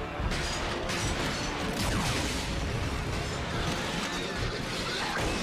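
Cartoon sci-fi battle soundtrack: dense robot-fight sound effects of mechanical clanking and weapon fire over background music.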